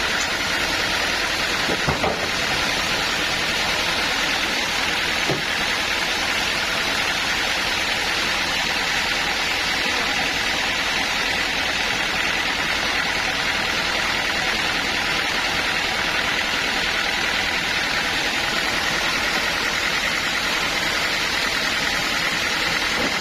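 Sawmill machinery running steadily, a constant mechanical noise with a faint high whine held over it. Two light knocks sound in the first few seconds.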